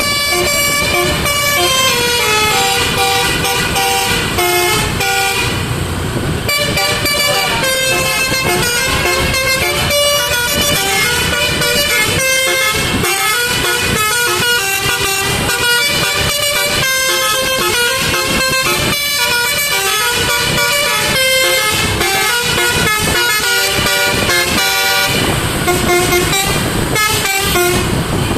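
Telolet basuri musical air horn, its trumpets playing a tune in quick stepping notes, one after another.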